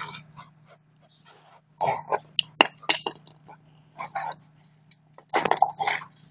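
Short irregular bursts of huffing and scuffling as a dog and a person play rough over a chew bone, with a sharp click about two and a half seconds in, over a faint steady low hum.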